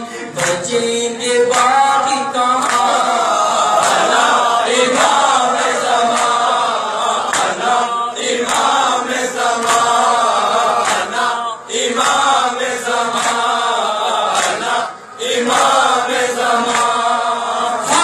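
Nauha, a Shia lament, chanted live by a male reciter into a microphone, with a group of men chanting along in chorus. Sharp slaps of chest-beating (matam) run under the voices, with two short breaks between lines.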